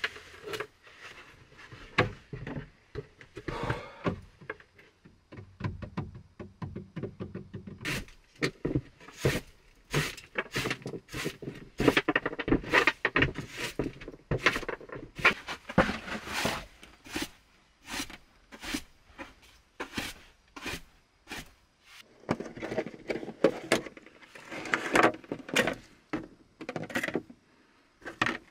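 Irregular wooden knocks, clunks and scrapes as plank boards and objects are handled and set down on a wooden plank table, with a dense run of sharp knocks through the middle.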